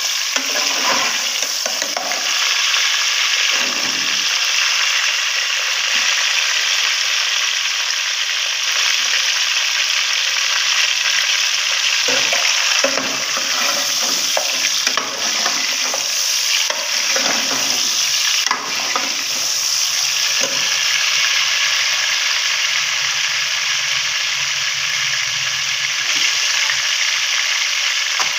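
Chicken pieces sizzling as they fry in hot oil with onions in an aluminium pot, stirred with a steel ladle that scrapes and knocks against the pot a few times.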